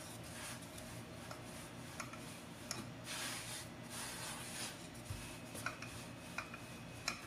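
Rolling pin working a potato-stuffed paratha dough on a floured wooden board: faint soft rubbing swishes with a few light taps.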